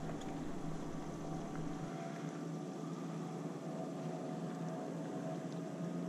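Steady low hum of a boat engine running, holding one pitch, over a light hiss.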